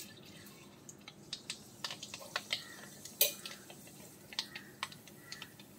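Mustard seeds tipped into hot coconut oil in a heavy iron kadai: a brief sizzle as they go in, then irregular sharp pops and crackles as the seeds start to burst.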